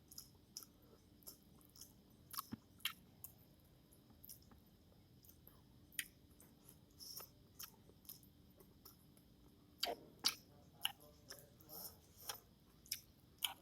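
Close-up chewing of Maggi masala instant noodles, with irregular sharp mouth clicks and smacks, a cluster of louder ones about ten seconds in.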